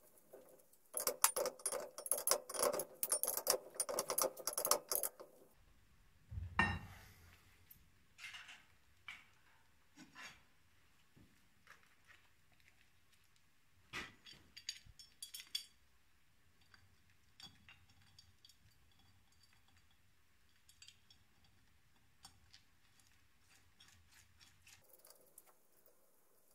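Metal parts clinking and rattling against each other and the steel workbench as a bracket and fittings are handled on an engine cylinder head. There is a dense burst of clatter for about four seconds, a single knock about six and a half seconds in, then scattered light clicks.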